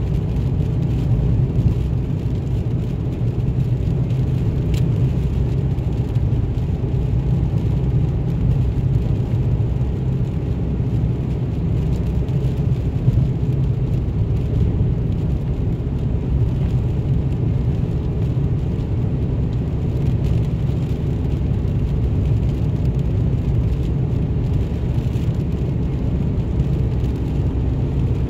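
Steady low drone of a vehicle's engine and tyres heard from inside the cab while driving at highway speed on wet pavement.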